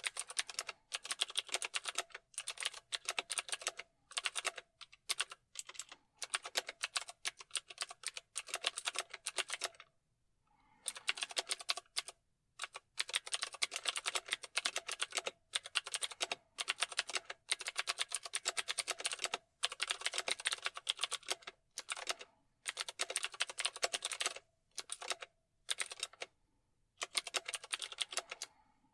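Typing on a computer keyboard: fast runs of key clicks lasting a second or two, broken by short pauses, with a longer break about ten seconds in.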